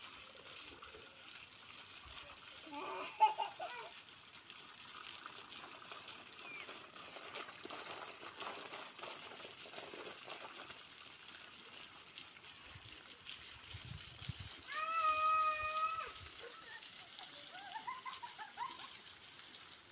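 Thin waterfall pouring onto stony ground with a steady splashing hiss. A brief loud voice-like cry comes about three seconds in, and a flat, steady tone with several overtones is held for about a second near the end.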